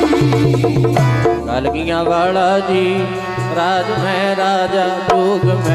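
Sikh kirtan music: a harmonium melody over steady held tones, with jori hand drums and small hand cymbals keeping the rhythm. The deep drum strokes drop out about a second and a half in and come back near the end.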